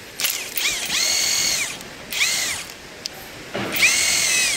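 Cordless electric impact wrench run in three short bursts, its motor whining up in pitch and falling away each time as it drives the nuts on a car's strut mount.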